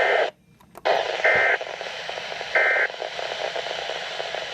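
Weather radio receiver giving three short, screechy two-tone SAME data bursts about a second apart over a steady hiss of radio static. The audio drops out briefly after the first burst. The short bursts fit the end-of-message code that closes a Weatheradio alert.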